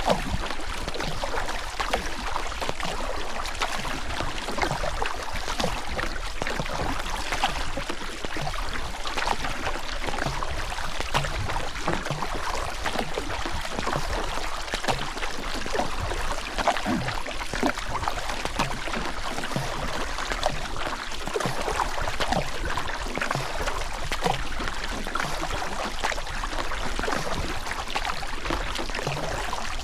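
Steady rushing of river water, an even wash full of small crackling splashes.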